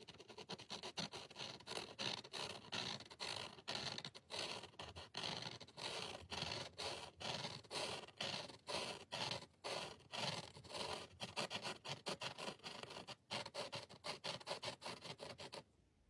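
Repeated scraping strokes, about two to three a second, each a short rasping scratch, stopping abruptly near the end.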